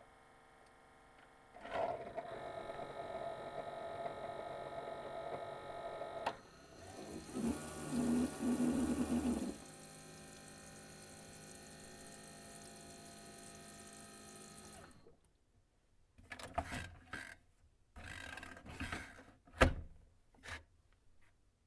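Keurig single-serve coffee maker brewing: its pump starts with a steady hum about two seconds in, then a louder gurgling stretch of a few seconds as water runs through, then a quieter steady hum. About fifteen seconds in the machine stops, followed by a handful of short irregular knocks and clicks, the loudest near the end.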